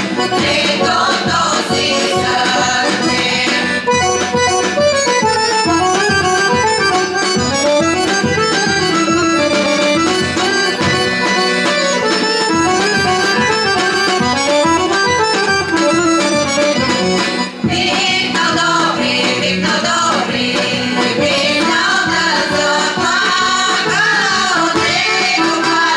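Bulgarian folk song: a women's choir singing with accordion and drum accompaniment, the drum keeping a steady beat.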